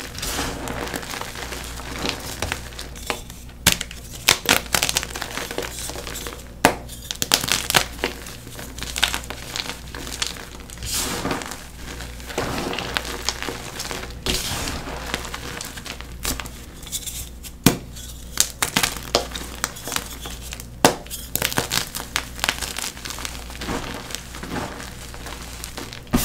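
Blocks of blue-dyed NEXO gym chalk being crumbled: dry crunching and crackling with frequent sharp snaps as the chalk breaks apart.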